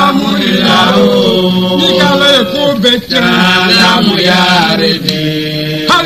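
Voices chanting continuously in a held, melodic chant.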